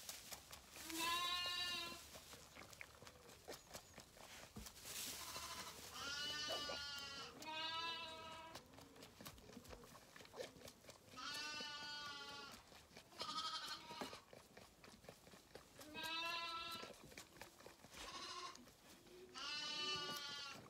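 Zwartbles lamb bleating repeatedly, about nine high, wavering calls spaced a second or two apart.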